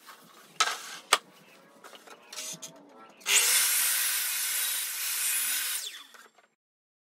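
A couple of sharp wooden knocks, then a sliding compound mitre saw cutting across a wide wooden board for about three seconds, the blade winding down briefly before the sound stops abruptly.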